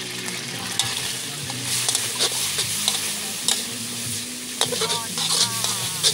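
Vegetables stir-frying in a hot pan: a steady sizzle, with a spatula scraping and clattering against the pan again and again, busiest in the second half.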